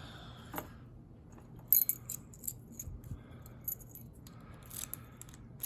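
A key being turned counterclockwise to unlock a Carbine padlock: scattered small metallic clicks and key jingles, with one sharper click about a second and a half in.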